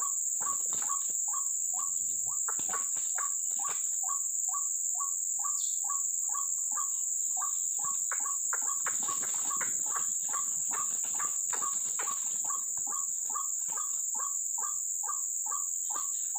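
White-breasted waterhen calls: a short note repeated evenly about twice a second, over a steady high insect drone.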